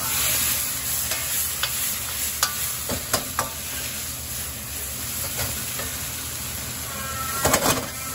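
Eggplant frying in sauce in a steel wok, with a steady sizzle. A metal ladle scrapes and clinks against the wok as it stirs, and a cluster of louder scrapes near the end rings.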